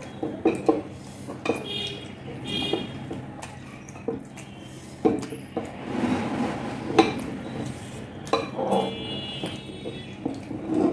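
Close-up eating sounds: flaky lachcha paratha being torn by hand on glass plates, with scattered sharp clinks and taps against the glass.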